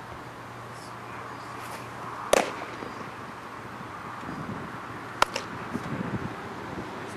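A baseball pitch popping into the catcher's mitt about two seconds in. A shorter, sharper glove snap about five seconds in as the return throw is caught, then a few light knocks.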